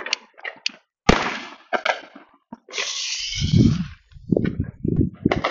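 Consumer fireworks going off: a sharp bang about a second in, then a firework on the ground hissing as it sprays sparks for over a second, followed by scattered crackling pops.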